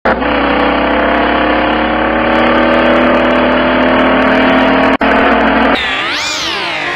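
Car engine running steadily, its pitch slowly rising, with a momentary break about five seconds in. Near the end comes a clearer engine rev that sweeps up and falls back, then climbs again.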